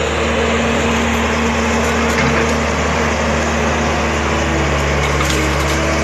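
Excavator's diesel engine running steadily, its note shifting slightly about four and a half seconds in.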